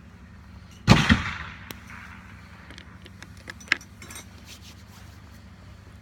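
A single loud gunshot about a second in, echoing briefly in the range hall, followed by a few light metallic clicks of revolver parts being handled.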